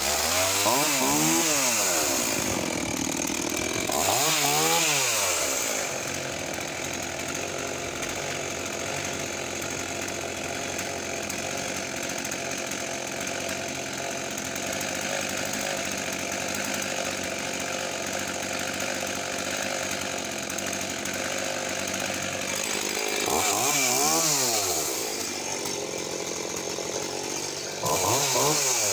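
Tanaka ECV-5501 two-stroke chainsaw pull-started and catching at once. The throttle is blipped twice in the first few seconds, then the saw idles steadily for most of the time, with another rev-up about 24 seconds in and again near the end.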